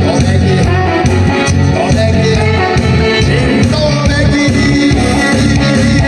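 Korean trot song: a man singing into a microphone over a loud backing track with a steady bass beat.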